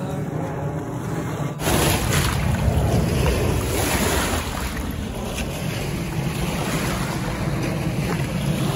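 Choppy lake waves washing and splashing against shoreline rocks, with wind buffeting the microphone, starting suddenly about one and a half seconds in. Soft background music plays underneath.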